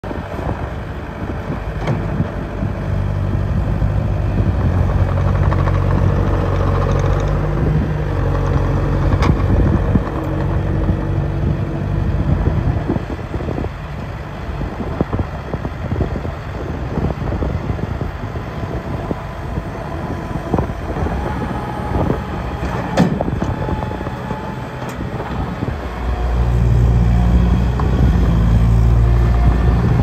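Bobcat T300 compact track loader's diesel engine running, with the engine speed rising and falling as the loader arms and bucket are worked, and a few sharp metallic clanks.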